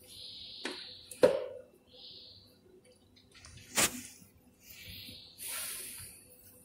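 A metal spoon knocking against a stainless steel food bowl, the loudest knock with a brief ring, then the bowl set down on a tile floor with a sharp clack a little under four seconds in. Soft rustling and scraping between the knocks.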